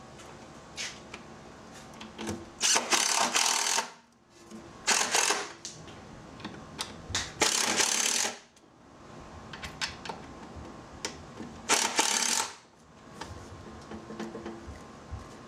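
Cordless drill with a long Phillips extension bit driving #14 screws into a trim tab actuator's mounting bracket on a fiberglass boat transom, in four short runs of about a second each. Small metal clicks and clinks come between the runs.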